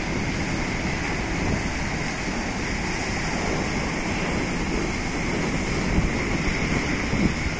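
Sea surf breaking and washing over rocks, a steady rushing noise, with wind buffeting the microphone.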